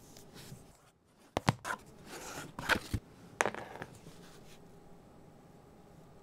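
An earphone box and its packaging being handled and opened. Several sharp clicks and knocks with scraping in between come in a cluster from about one and a half to three and a half seconds in, followed by faint handling.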